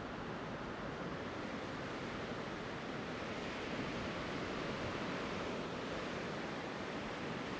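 Ocean surf breaking, a steady wash of noise mixed with some wind, swelling slightly a few seconds in.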